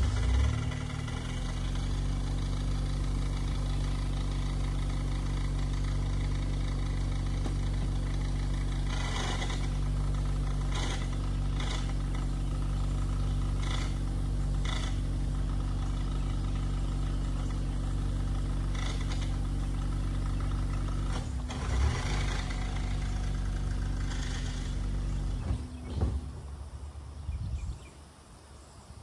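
Honda Accord engine starting and running at a steady speed for about twenty-five seconds, with a few short knocks and clunks along the way, then shut off near the end, followed by a couple of thumps.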